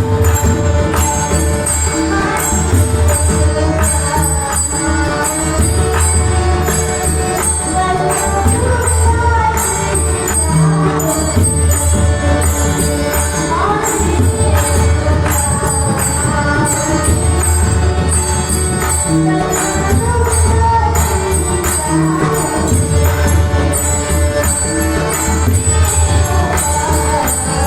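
Varkari bhajan music: pakhawaj and tabla drumming under a melody, with small hand cymbals jingling in a steady, even rhythm.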